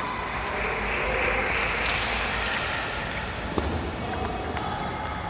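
Competition hall ambience, a steady murmur of background noise, with a single sharp table-tennis ball knock about three and a half seconds in.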